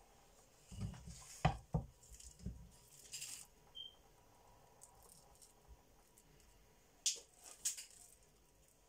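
Wooden spoon scooping mashed potato from a pan and plopping it onto a ceramic plate: a few soft thumps and scrapes about a second in, then light knocks and clicks near the end.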